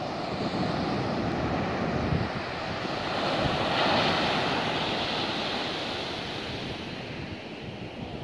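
Heavy storm surf breaking on a sandy beach: a continuous wash of waves that swells to its loudest as a wave crashes about four seconds in, then eases.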